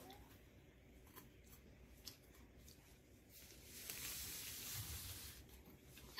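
Faint chewing of a bite of sausage and bread, with a few soft mouth clicks and a soft hiss lasting about two seconds midway.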